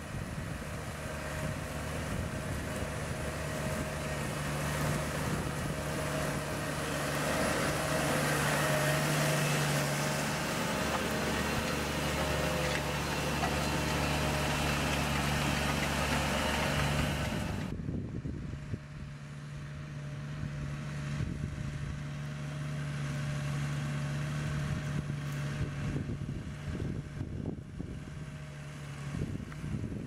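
New Holland T7.270 tractor's six-cylinder diesel engine running steadily under load as it pulls a reversible plough through stubble. A steady low engine hum throughout, with a hiss over it that drops away abruptly about two-thirds of the way through.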